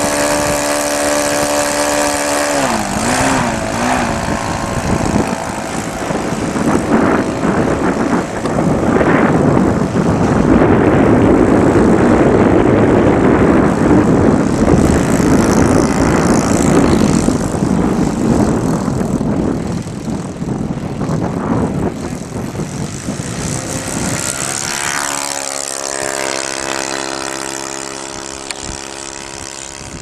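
Radio-controlled model airplane's engine running with a steady high note, the note dipping and wobbling about three seconds in as the throttle changes. A loud rushing noise covers much of the middle, then the engine's whine returns clearly, pitch falling slightly and fading as the model flies away.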